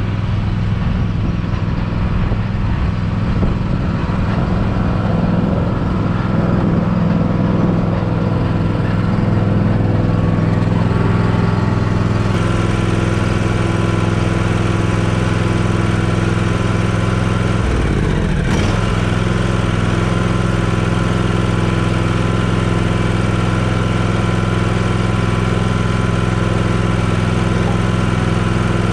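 John Deere riding lawn tractor's engine running at a steady speed as the tractor is driven across the grass.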